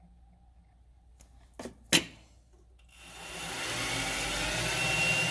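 Two sharp clicks, the second the louder, then about a second later a small metal lathe starts up, its motor and spindle spinning up over about a second to a steady run with a faint high whine.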